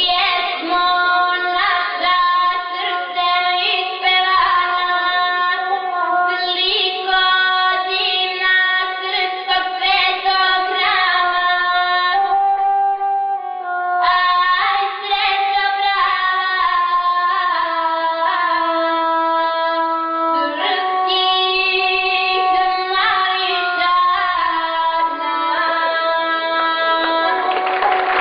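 A young woman sings in long, held phrases while accompanying herself on the gusle, the bowed single-string Serbian folk fiddle. Audience applause breaks in near the end.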